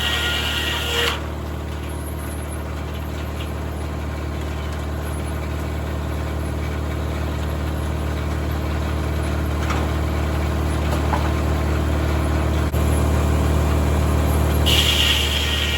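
Tractor engine running steadily under the throttle, driving a 1950 Corley circular sawmill. A higher whine stops about a second in and comes back near the end.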